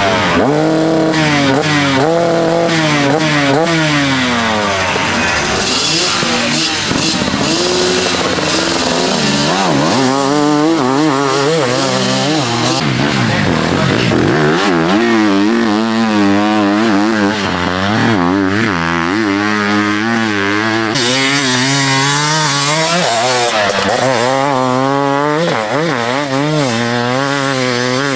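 Enduro dirt bike engines being revved hard through loose sand, the pitch climbing and dropping again and again with throttle blips and gear changes.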